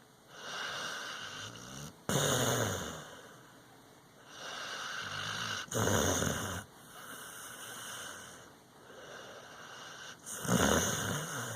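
Sleeping dog snoring: slow, rhythmic breaths, each louder one carrying a rough, low rattling snore, with quieter breaths between.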